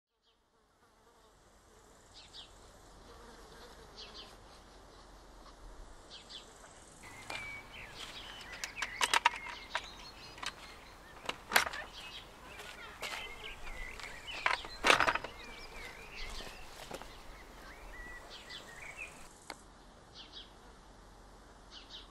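A flying insect buzzing, its pitch wavering, with a few sharp knocks in the middle and short high chirps near the start and end.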